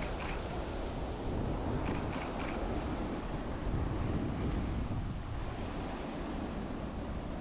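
Wind buffeting the microphone: a steady rushing noise with a heavy low rumble, and a few brief faint ticks about two seconds in.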